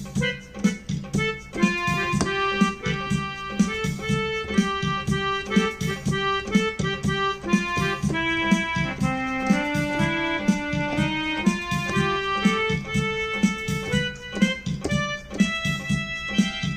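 Yamaha PSR-I400 portable keyboard playing a melody of held notes over its built-in rhythm accompaniment, with a steady drum beat and bass underneath.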